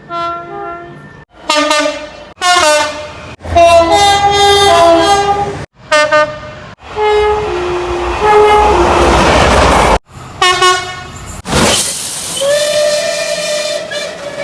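A rapid run of British train horns cut together, about eight short clips in a row, each broken off abruptly. Most are alternating two-tone horn blasts. The middle clips carry the rumble and rush of a passing train, and the last one is a single long held note.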